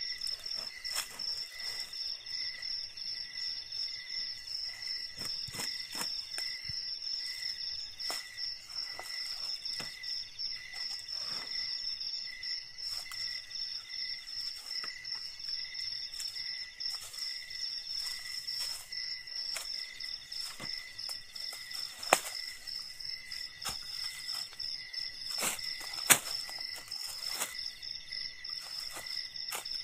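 Insects trilling steadily: a high, rapidly pulsing trill with fainter lower trills beneath it. Scattered soft rustles and knocks of handling on dry leaf litter, with two sharp clicks in the second half as the loudest sounds.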